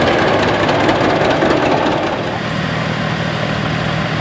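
Vintage tractor engines running in the field: first the 1947 John Deere Model A's two-cylinder engine, then, from about halfway, a steadier engine hum from a 1968 Ford 4000 tractor.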